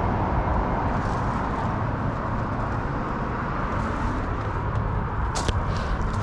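Steady outdoor noise on a breezy day: wind on the microphone with a low rumble. A brief sharp click comes about five and a half seconds in.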